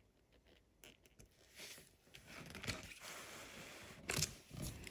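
Faint pen strokes on a paper page, then a soft rustling scrape as the textbook is slid and handled on the table.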